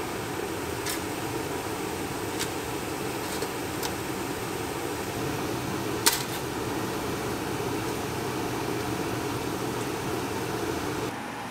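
Steady fan-like whir, with a few light clicks and one sharper click about six seconds in.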